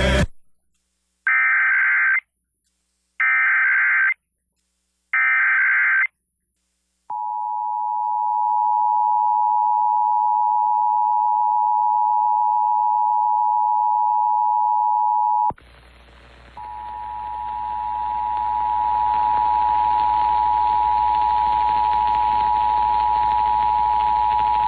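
Emergency Alert System test: three one-second bursts of SAME header data tones, then the two-tone EAS attention signal held steadily for about eight seconds. It cuts off abruptly, a steady hiss comes in, and about a second later the two-tone attention signal starts again over the hiss, growing louder over a few seconds.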